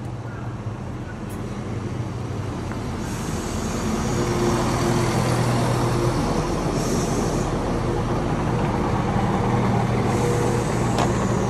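Southern Class 171 Turbostar diesel multiple unit running into the platform, its diesel engines humming and growing louder over the first few seconds as it draws alongside, then holding steady as it slows, with a few brief hisses.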